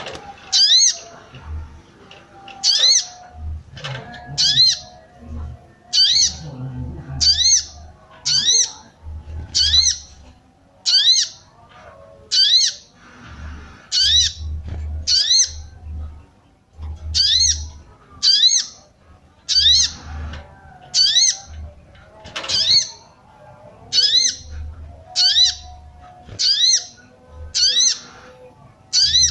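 Female brown-throated sunbird (sogon) giving short, sharp, rising 'cuit' calls, repeated about once a second. This is the female's call used to stir males into calling. Low dull thumps sound faintly between some calls.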